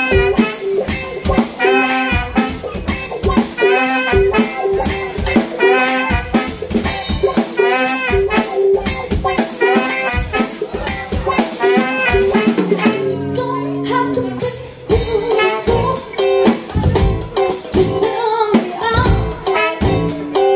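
Live funk band playing: drum kit, electric guitar, saxophone and trombone, with a woman singing. The drum beat drops out briefly about two-thirds of the way in under held low notes, then comes back.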